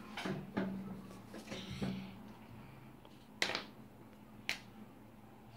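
Felt-tip marker cap being worked off and on by hand: two sharp clicks about a second apart, over a faint steady hum.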